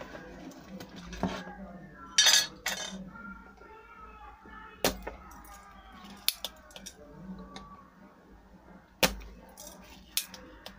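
Spring-loaded desoldering pump being cocked and fired to suck molten solder off a transformer's pins on a power supply board. It makes a loud hissing snap about two seconds in, then several sharp clicks.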